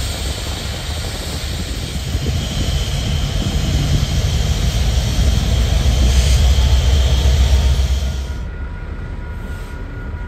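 Canadian Pacific diesel locomotives passing close by: a steady deep engine rumble with rolling wheel and rail noise, growing louder as they pass. About eight seconds in the sound drops away to a fainter, more distant rumble, with a faint steady tone.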